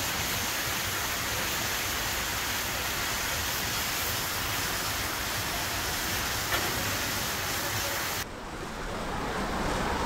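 Water rushing and splashing steadily as it pours from a water slide's chute into a splash pool. About eight seconds in it cuts to a quieter, duller open-air background.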